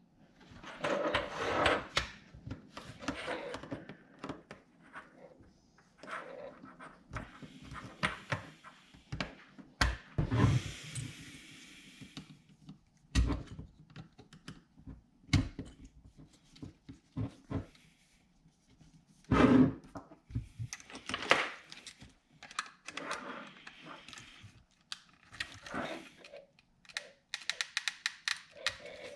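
Scattered thunks, clicks and rustling of things being handled and set down, with one heavier thump about two-thirds of the way through.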